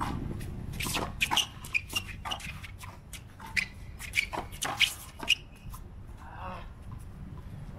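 Racquetball rally on an outdoor concrete court: a string of sharp hits as the ball is struck by racquets and bounces off the concrete wall and floor, with sneakers squeaking and scuffing on the concrete, dying away after about five seconds.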